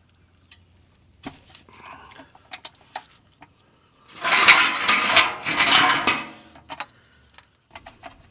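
Long 3/8-inch ratchet and 16 mm socket working a Jeep 4.0 oil drain plug loose. A few separate clicks come first, then about two seconds of rapid, loud ratcheting about four seconds in.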